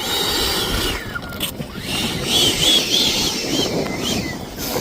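The electric ducted fan of a Freewing F-16 RC jet whining, its pitch wavering up and down as the throttle is worked, over heavy wind noise on the microphone.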